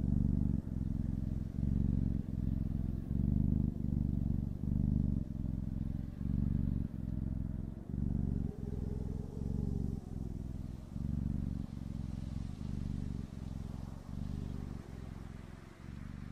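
Domestic cat purring, a low buzzing purr that pulses with each breath about every three-quarters of a second and grows fainter toward the end.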